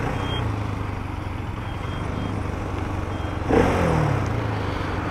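Bajaj Pulsar RS200 single-cylinder engine running steadily at low revs, heard from the rider's seat, with a brief rev that falls back about three and a half seconds in.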